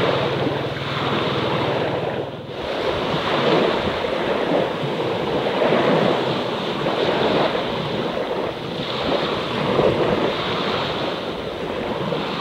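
Small sea waves washing onto the shore and drawing back, swelling and ebbing every couple of seconds. A low steady hum sits underneath for the first two seconds or so.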